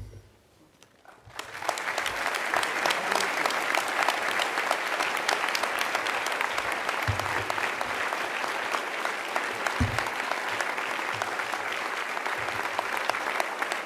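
Audience applauding: dense clapping that breaks out about a second and a half in and keeps going evenly.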